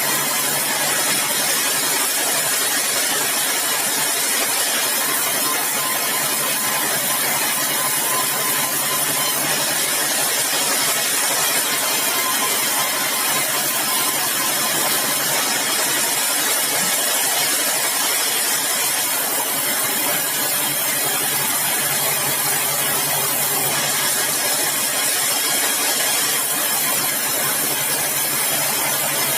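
Sawmill machinery running steadily: an engine-driven saw rig giving a continuous noisy drone over a low steady hum, without a break.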